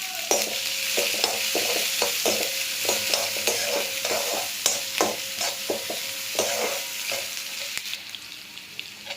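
Finely chopped onion sizzling in hot oil in a kadai, stirred with a spatula that knocks and scrapes against the pan every half second or so. The sizzle eases off a little near the end.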